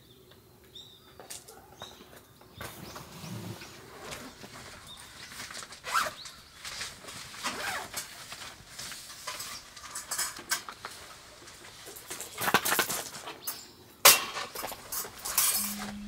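Camping gear being handled and unpacked from a car's cargo area: rustling, shuffling and light clattering, with scattered knocks. The sharpest knock comes about fourteen seconds in.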